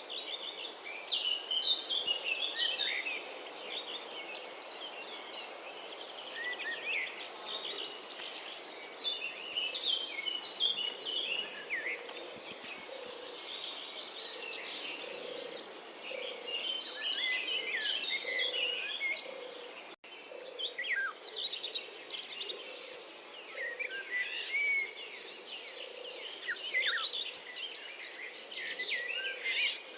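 European robin singing: quick, high, varied warbling phrases over a steady wash of outdoor background noise. The sound drops out for an instant about two-thirds of the way through.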